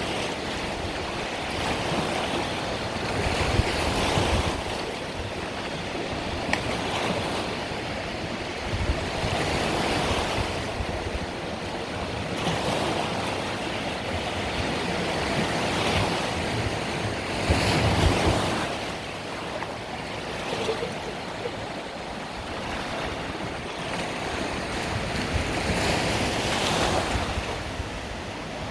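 Mediterranean sea waves washing onto the beach, each one swelling and falling back every few seconds, the biggest about two-thirds of the way through.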